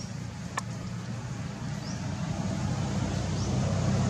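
Steady low hum of a motor engine running, growing slightly louder toward the end, with one sharp click about half a second in and two faint short high chirps.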